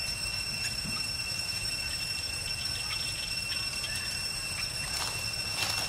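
Steady high-pitched drone of insects, one unbroken whine with a low rumble beneath it. Near the end come a few crackling rustles of dry leaves.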